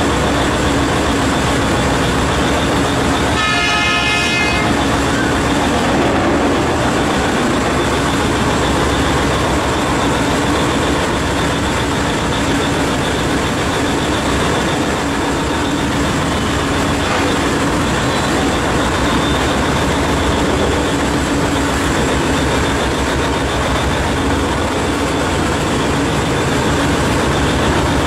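Steady, loud machinery noise of a P&H electric mining shovel at work, with a horn sounding once for about a second, about four seconds in.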